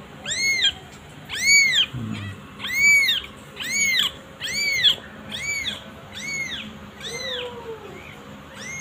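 Newborn kitten crying over and over: high, arched mews about once a second. The crying is a distress call, which the rescuer takes for thirst or cold. A single lower call comes about seven seconds in.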